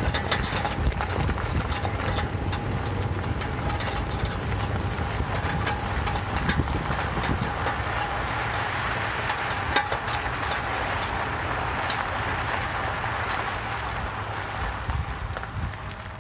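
A vehicle on the move, with a steady whine running under the road and drive noise from a bad wheel, which the owner suspects is a worn wheel bearing. The noise swells in the middle and eases toward the end.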